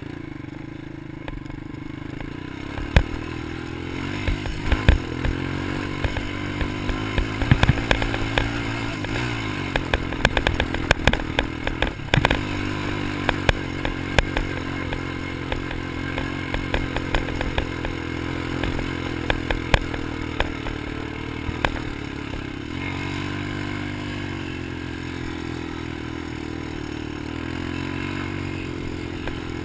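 Quad ATV engine running and revving as it is ridden over sand dunes, its pitch rising and falling. Many sharp knocks and rattles come through the middle part of the ride, then fewer toward the end.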